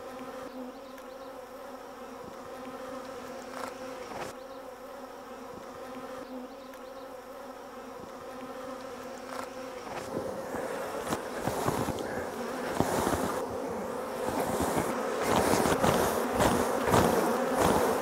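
Honeybees buzzing around an open hive: a steady hum with several pitches. About halfway through, the buzz grows louder and busier, with sharp knocks as wooden hive boxes are handled.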